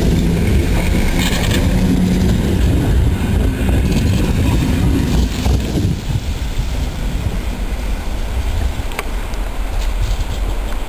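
EN57 electric multiple unit running past close by, its wheels and running gear rumbling loudly on the rails, then growing quieter about six seconds in as it pulls away. A couple of sharp clicks near the end.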